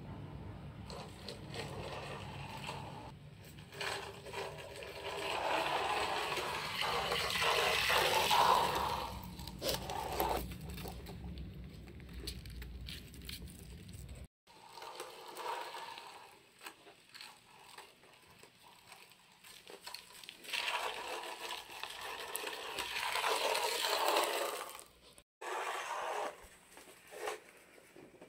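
Small hard wheels of a toy fingerboard skateboard rolling and scraping across a wooden floor. The noise swells and fades twice, with scattered small clicks.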